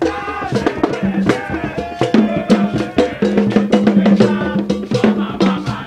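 Music driven by fast, dense drum and wood-block-like percussion, with sustained pitched instrument or vocal lines over it.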